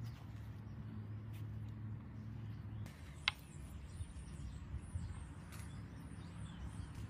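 Outdoor background sound: a low steady hum that eases off about three seconds in, then a single sharp high chirp and a few faint high chirps.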